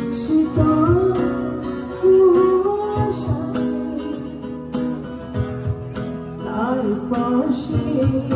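Live acoustic performance: a woman singing a melodic song over strummed acoustic guitar and a low box-drum beat, amplified through PA speakers.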